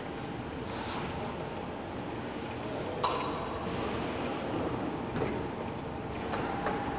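Trailerskate automatic unloading system running steadily, its skates moving loaded racks of tyres along the floor rails, with a single metal clank about three seconds in.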